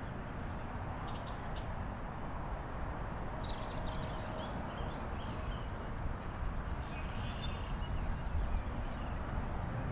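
Outdoor ambience: a steady low noise, with small birds chirping from about three and a half seconds in until near the end.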